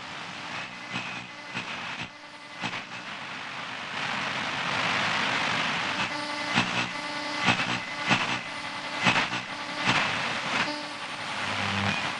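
Radio interference: hissing static with irregular crackles and pops and faint whistling tones, growing louder and busier about four seconds in.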